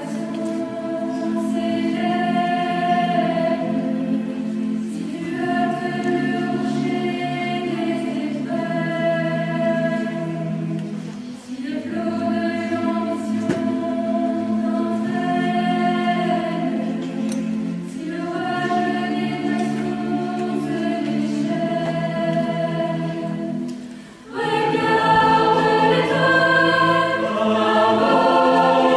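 Choir singing sacred music in long held chords, phrase after phrase with short breaks between, growing louder and fuller near the end.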